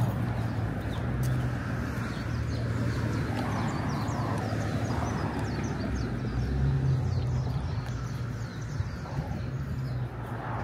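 Street traffic with a steady low engine rumble that swells briefly in the middle, under many birds chirping quickly.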